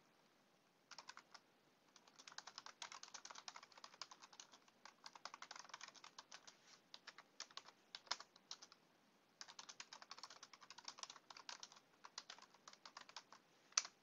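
Faint typing on a computer keyboard: rapid runs of key clicks, pausing briefly about nine seconds in, with one louder single click near the end.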